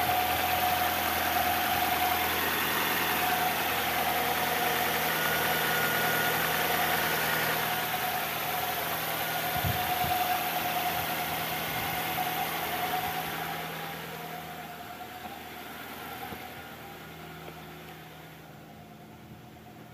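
Nissan Sentra N16's four-cylinder engine idling steadily, running on a newly fitted crankshaft position sensor. The sound grows fainter over the last several seconds.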